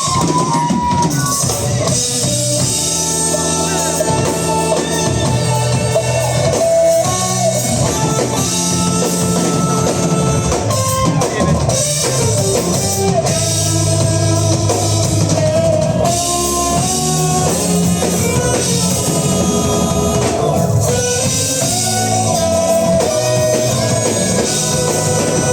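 A rock band playing on drum kit and guitar, at a steady full loudness.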